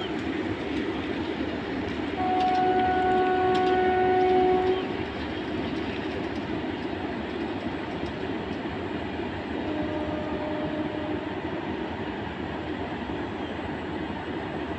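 Indian Railways electric goods train running past with a steady rumble and clatter of wagons on the rails. A locomotive horn sounds one steady blast about two seconds in, lasting about two and a half seconds and louder than the train. A shorter, fainter, lower horn follows near the middle.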